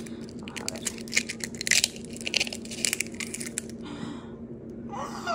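An eggshell cracked and crushed with one hand over a bowl: a dense run of crackles and sharp snaps lasting a couple of seconds.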